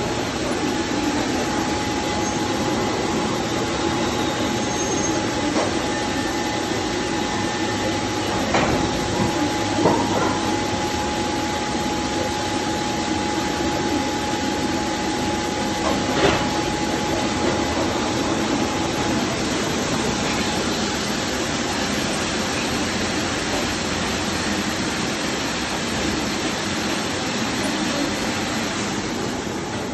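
Granite flaming machine running: a steady, loud noise from its gas burners and slab conveyor. A thin steady whine runs through the first two-thirds, and there are a few sharp knocks as stone slabs move along.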